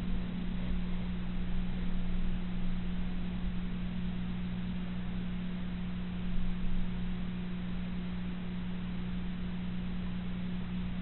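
Steady low electrical hum with a faint hiss underneath, and two brief soft bumps a little past the middle.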